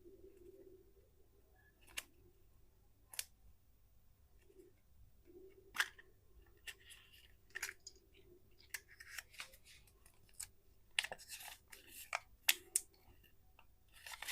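Candy wrapper crinkling and crackling as it is handled and opened: scattered sharp clicks and crackles that come thicker and faster in the last few seconds.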